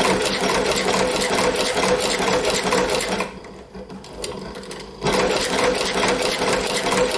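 China leather shoe patcher, a walking-foot sewing machine driven by a servomotor, stitching through three layers of nylon webbing 3/8 inch thick with rapid needle strokes. It stops for under two seconds about three seconds in, then starts again abruptly.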